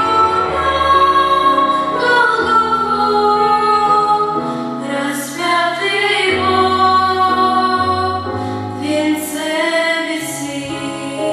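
Women's voices singing a church song together over a sustained instrumental accompaniment with held bass notes.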